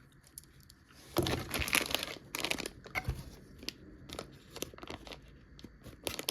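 Packaging being handled and torn open by hand: irregular crinkling and tearing, starting about a second in.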